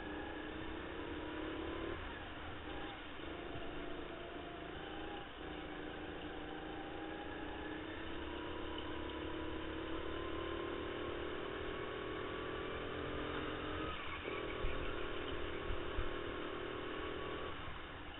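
Racing go-kart's motor heard from on board during a lap, its note climbing steadily along the straights and dropping away abruptly about four times as the kart slows for corners. A couple of brief knocks come a little before the end.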